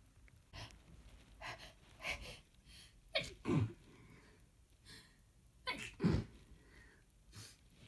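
A person in a muffled sneezing fit: a run of short sneezes, the two loudest about three and about six seconds in.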